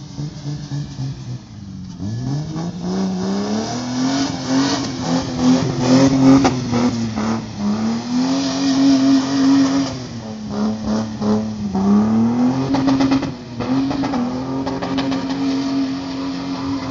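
Old Nissan Patrol's engine revved hard and held high as the SUV spins circles on wet pavement. The revs climb about two seconds in, then dip and climb back several times as the throttle is lifted and reapplied, over the hiss and scrub of the tyres.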